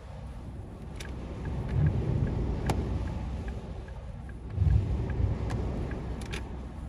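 Car cabin road noise at motorway speed in light rain: a steady low tyre and wind rumble that swells twice, with a few short sharp ticks.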